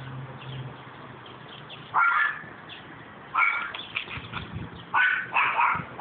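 A dog barking: about five short barks starting about two seconds in, coming faster toward the end.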